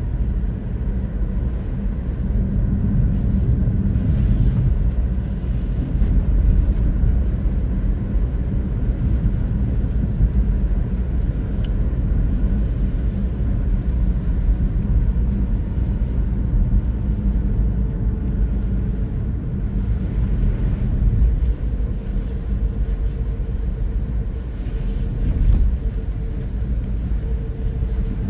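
Steady low rumble of a car driving on a rain-wet road.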